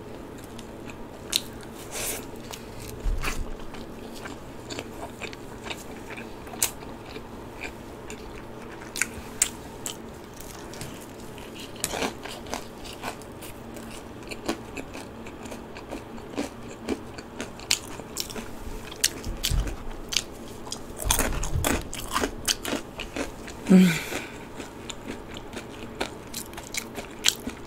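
Close-miked eating sounds: irregular crisp crunches and chewing of cheese-powdered Korean fried chicken (BHC Bburinkle) and cheese balls. A brief hum from the eater comes near the end.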